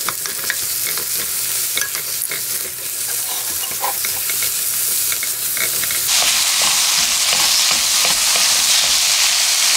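Sliced Korean zucchini with onion and chili sizzling in oil as it is stir-fried over high heat in a nonstick wok, with a spatula scraping and clicking against the pan. The sizzle turns suddenly louder about six seconds in.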